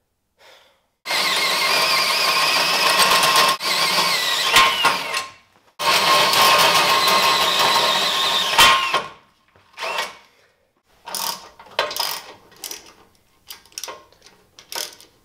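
Electric drill boring a 3/4-inch hole up through the steel winch bumper plate: two long runs of the drill under load, each with a high whine that wavers in pitch. After them comes a string of short ratchet strokes as a 9/16 socket on an extension, fed through the new hole, tightens a rear winch mounting bolt.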